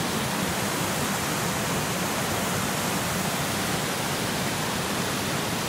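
Small waterfall with water rushing over low rock ledges, a steady even rush close by.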